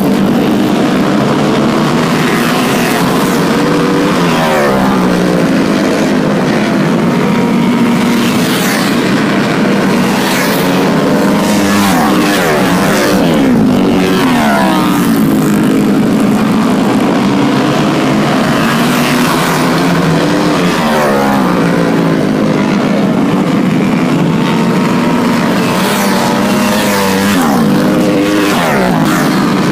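Several flat track racing motorcycles lapping, loud and continuous. Their engines rise and fall in pitch every few seconds as the riders accelerate and back off around the track.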